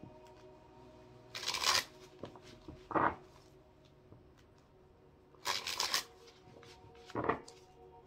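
A deck of tarot cards being shuffled in the hands: two longer rustling runs of cards about a second and a half and five and a half seconds in, with shorter single snaps of cards around three and seven seconds. Faint background music with held tones runs underneath.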